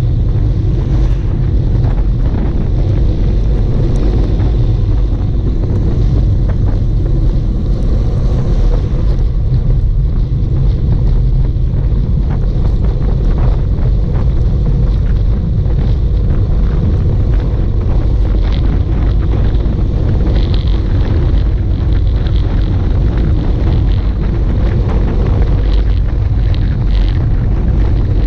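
Wind buffeting the microphone on a fast bicycle descent: a loud, steady low rumble.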